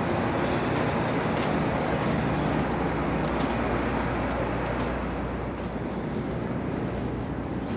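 An engine running steadily with a low hum under an even rushing noise, with a few faint ticks.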